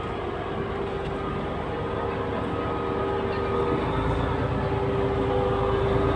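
DB Cargo DE6400 diesel-electric locomotive running as it slowly approaches with a freight train, its engine rumble and a steady whine growing louder as it nears, the rumble strengthening about four seconds in.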